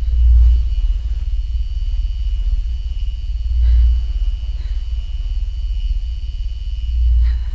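Deep low rumble that swells three times, about every three and a half seconds, over a faint steady high whine.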